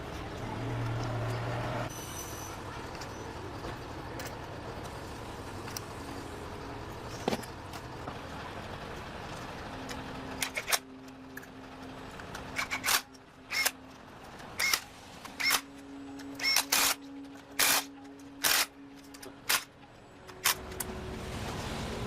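Steady background noise, then, about halfway through, a run of about a dozen sharp, irregularly spaced clicks or knocks with a slight metallic ring over a faint low hum.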